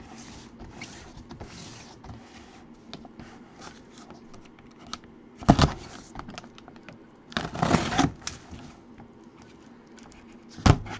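Cardboard box being handled and opened by gloved hands: light rustling and scraping of cardboard, a sharp knock about halfway through, a longer scrape a couple of seconds later, and another knock near the end.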